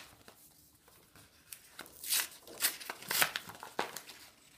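Paper envelope being torn open and handled, a quick run of sharp rips and rustles of paper starting about a second and a half in.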